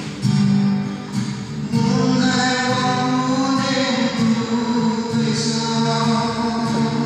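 A man singing long held notes into a microphone while playing a guitar.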